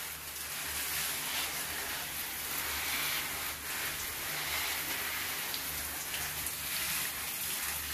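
Water from a hand-held shower head spraying onto the fronds of potted areca palms, a steady hiss of water falling on leaves and into the pots as the plants are drenched.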